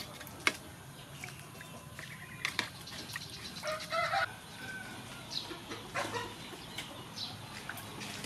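A knife scraping and clicking against pork skin in a metal basin of water, with chickens clucking and a short call about four seconds in.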